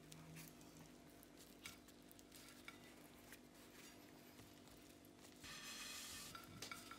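Faint rustling and soft ticks of a flour tortilla being folded over on a ceramic plate, with a louder papery rustle a little over five seconds in, over a steady low room hum.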